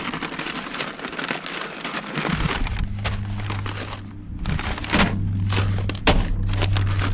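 Seed bags and packets being handled, their paper and plastic crinkling and rustling, with a few sharp crackles. A steady low hum comes in about two and a half seconds in.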